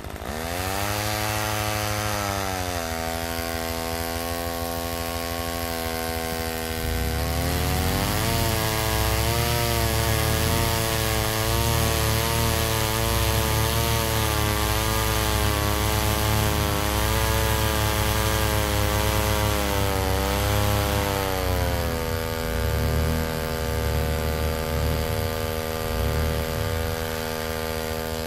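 Chainsaw-powered capstan winch, its two-stroke chainsaw engine running: it rises in pitch at the start and runs steadily, then about seven seconds in opens up louder with a wavering pitch as it hauls a stuck tracked UTV through the snow, settling back to a steadier, lower note about 22 seconds in.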